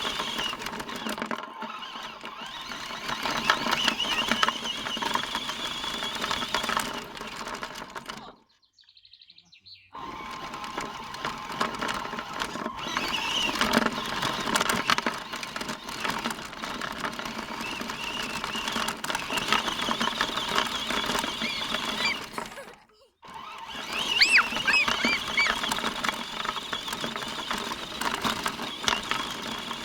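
Radio-controlled car's small electric motor and gears whining as it drives, the pitch rising and falling with the throttle; the sound drops out twice, briefly.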